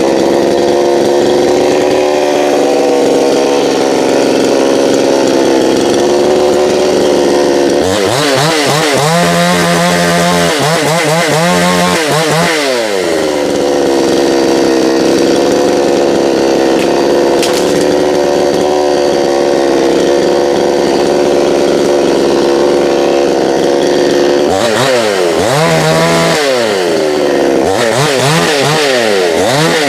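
Two-stroke chainsaw running at high revs while cutting up a fallen apple tree limb. The engine pitch sweeps down and back up a few times about a third of the way in, and again near the end.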